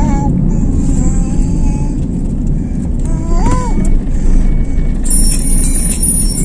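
Car driving on a road, with a steady low rumble of engine and tyre noise heard inside the cabin.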